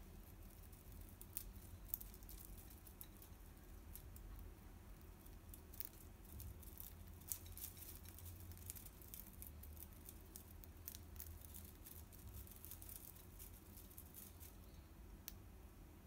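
Budgie chewing and shredding a bundle of dry straw with its beak: faint, irregular crackly snips and clicks.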